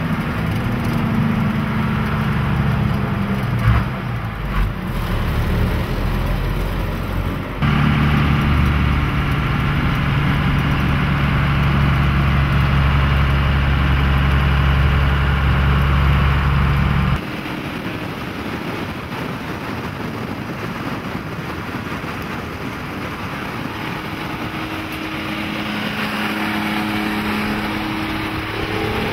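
Dodge Cummins straight-six diesel in a 1941 International KB5 two-ton truck, running steadily as the truck drives along the road. The sound changes abruptly about 7 s and 17 s in, and the last part has much less of the deep engine drone and more road noise.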